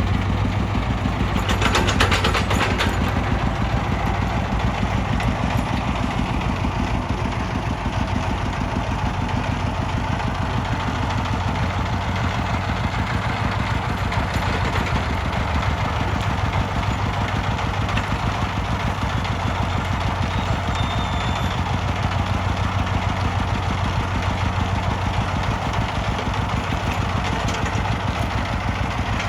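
Diesel engine of heavy earth-moving machinery running steadily, with a brief rapid clatter about two seconds in.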